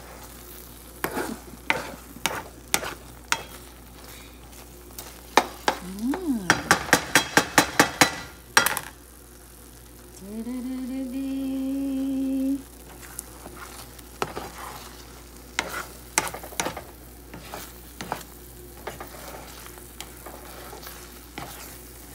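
Spatula stirring and scraping sardines and egg in a nonstick frying pan, with a light sizzle, in scattered strokes and a quick run of rapid strokes about six to eight seconds in. About ten seconds in a person hums one held note for a couple of seconds.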